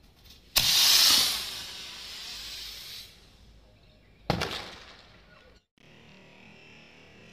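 Rocket firecracker igniting with a sudden loud whoosh about half a second in, then hissing and fading over about two seconds as it shoots off. A second sharp burst, fading quickly, comes about four seconds in.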